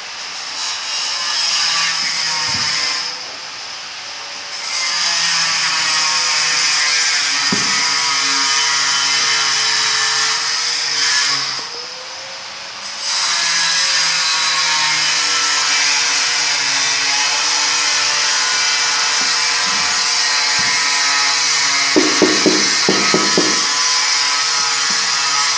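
A power tool runs loudly and steadily, dropping away twice for a second or so. Near the end comes a quick run of about six taps from a rubber mallet bedding a ceramic floor tile into its mortar.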